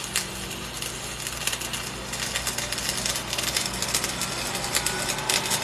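Welding arc crackling steadily as a bead is run, over a low steady hum.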